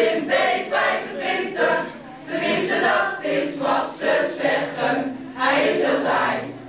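A mixed choir of boys and girls singing a song together, in phrases with short breaks between them.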